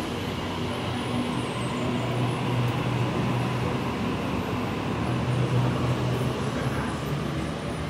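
Waratah double-deck electric train pulling away from the platform, a steady low hum that swells a little at times as the cars pass.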